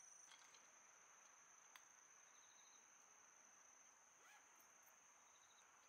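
Near silence: faint outdoor ambience with a steady, high-pitched insect drone, most likely a cricket, and a faint click about two seconds in.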